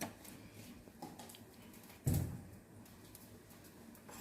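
Quiet kitchen handling sounds: a few light clicks and one dull knock about two seconds in.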